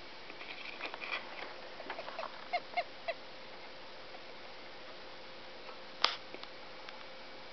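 Pet hamster hiccuping: a run of small clicks and short squeaky hics, ending in three sharper hics in quick succession about two and a half to three seconds in. A single sharp click about six seconds in is the loudest sound.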